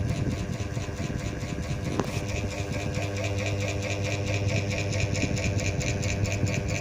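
BestLife mini ceiling fan running: a steady electric motor hum with a fast, even pulsing from the spinning blades, and a single click about two seconds in.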